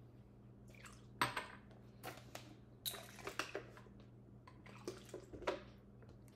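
Small drinking glasses and plastic water bottles being handled and set down on a stone countertop: a series of separate knocks and clicks, the sharpest about a second in, with some pouring of water.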